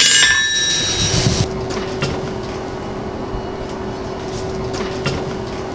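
A hand-forged ball-peen hammer strikes the steel anvil once, and the anvil rings out with several high, clear tones that fade over about a second and a half. A steady low hum carries on after the ring dies away.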